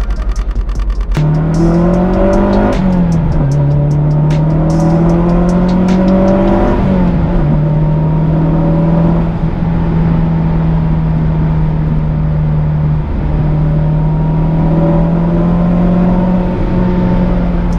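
Mazdaspeed 6's turbocharged four-cylinder engine heard from inside the cabin during a hard acceleration run. The revs climb twice, each climb ending in a sharp drop at an upshift, and the engine then holds a high, fairly steady speed.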